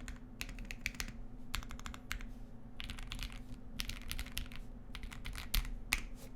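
Ikki68 Aurora R2 mechanical keyboard with lubed Aurora Clear switches and transparent Keysterine keycaps being typed on: quick runs of keystrokes with short pauses between them, and two heavier strokes near the end.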